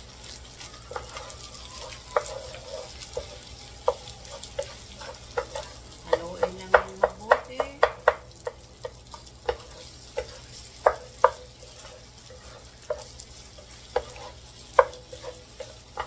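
Two wooden spatulas tossing fried rice in an electric skillet: irregular clacks and scrapes of wood against the pan, over a faint sizzle of the rice frying. The taps come thickest about six to eight seconds in.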